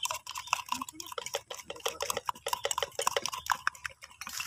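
Rapid, irregular clicks and taps of plastic water bottles and their screw caps being handled, with a few light clinks.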